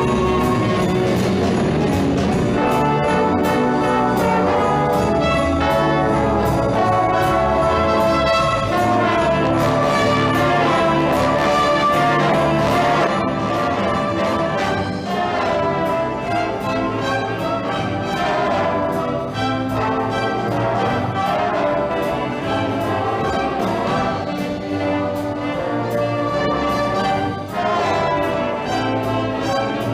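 Brass-heavy ensemble music in a swing style, with a steady beat throughout.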